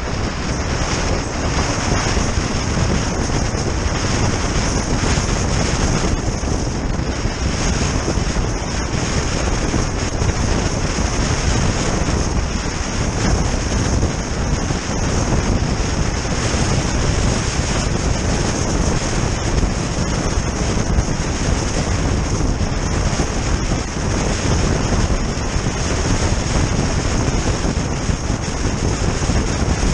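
Steady, loud wind noise buffeting the microphone of a GoPro Hero Session stuck to the outside of a car driving at road speed, mixed with the car's road noise and a steady high hiss.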